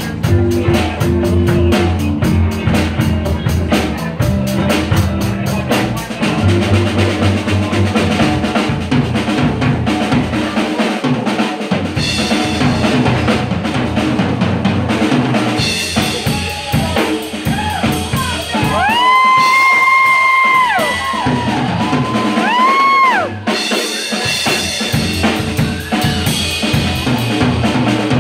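Live blues band playing, with a drum kit driving the song on snare and bass drum under a low bass line. About two-thirds of the way through, a lead instrument holds long high notes that bend up and back down.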